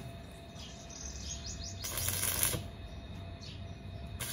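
Angle grinder working steel in short grinding passes of under a second each: one about two seconds in and another starting near the end.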